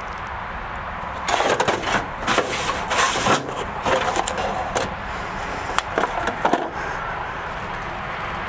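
A steel parts-cabinet drawer slides open, with the clatter and rattle of loose metal parts being rummaged inside. The clicks and scrapes start a little over a second in and die away after about seven seconds.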